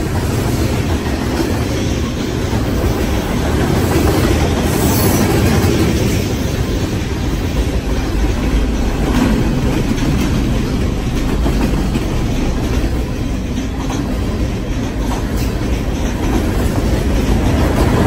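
Freight cars of a manifest train rolling past close by: a steady rumble of steel wheels on rail, with scattered clacks of wheels over the rail joints.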